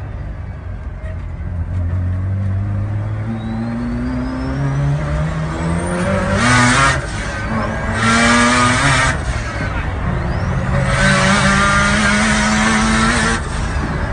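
Mazda RX-7's rotary engine accelerating hard, its note climbing in pitch. It breaks off and drops back twice, about 7 and 9 seconds in, as if at gear changes, then climbs again before cutting back sharply near the end.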